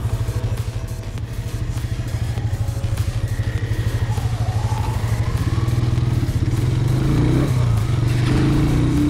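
Motorcycle engine running under way, with a steady rapid pulse; the revs climb from about five seconds in and stay higher near the end.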